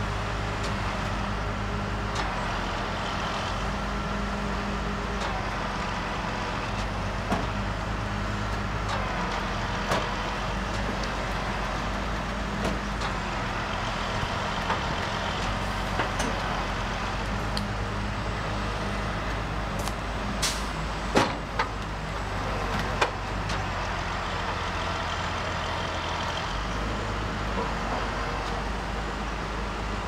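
Heavy wrecker's diesel engine running steadily as its boom and cable winch lift an overturned concrete mixer truck, the engine note shifting slightly a few times. Scattered short clanks and knocks, the loudest a cluster about 21 to 23 seconds in.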